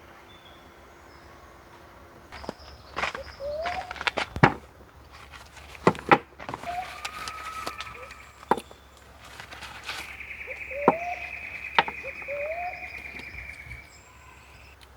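A handful of sharp knocks and clicks, as of camping gear being handled, with birds calling around them, among them short rising chirps and a long steady high note near the end.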